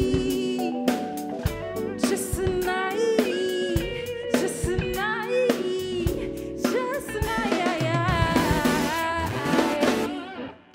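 Live band playing: drum kit with a steady beat, bass guitar and keyboards, with a woman singing over it. The music stops suddenly near the end.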